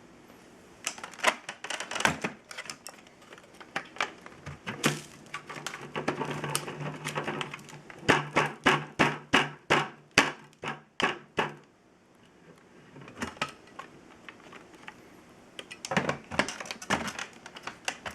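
Plastic clicks, knocks and rattles from a Dyson DC07 upright vacuum's parts being handled, with a fast regular run of sharp clicks, about two to three a second, between about 8 and 11 seconds in.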